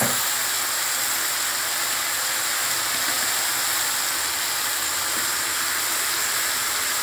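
Cauliflower stems, potato and eggplant frying in oil in a wok, a steady sizzling hiss.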